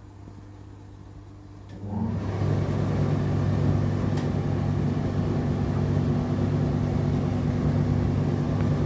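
Indesit IDC8T3 condenser dryer's drum motor, quiet for about two seconds, then starting up and running with a loud steady hum and rough noise over it: the loud noise the dryer makes when the drum turns in reverse.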